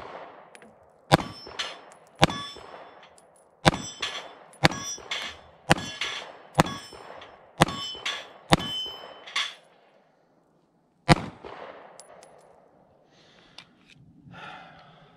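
Nine shots from a 9mm micro-compact pistol, about one a second with a longer pause before the last. Steel plate targets ring with a metallic clang after the hits.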